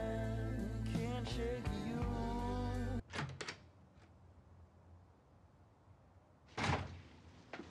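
A song with a woman singing over music, cut off abruptly about three seconds in. Then quiet, with a few short knocks just after the cut and one louder thump about a second before the end.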